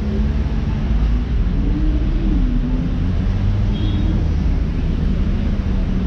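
City street traffic: cars running and passing close by, with a steady low rumble and engine hum.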